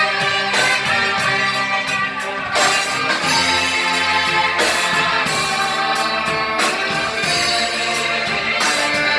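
Church orchestra playing a hymn, full sustained chords that change every second or two.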